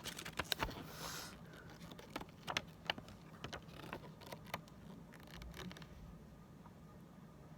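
Plastic 3x3 puzzle cube being turned by hand: irregular small clicks and clacks of its layers, with a brief scraping hiss about a second in.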